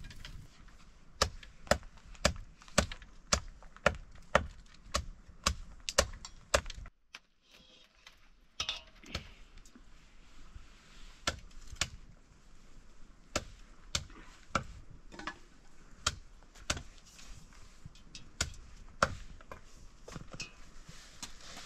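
Repeated sharp chopping strokes of a blade on wood, about two a second, stopping briefly around seven seconds in, then going on more slowly and unevenly.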